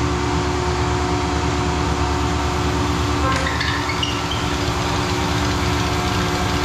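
A Bosch diesel injection pump test bench running steadily and driving a six-cylinder inline injection pump through a delivery test, with a fast, even pulsing and several steady hums.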